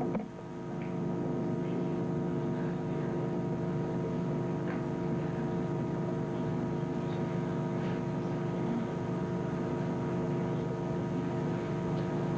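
Steady electrical hum with a buzz of many even overtones over a low noise, unchanging throughout. A few faint, short sounds from the room come through now and then.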